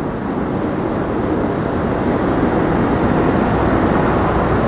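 Steady rumble of a passing motor vehicle in street traffic, growing slightly louder.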